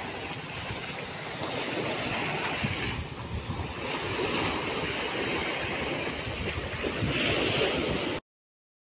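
Small waves breaking and washing up a sandy shore, swelling twice, with wind rumbling on the microphone. The sound cuts off abruptly near the end.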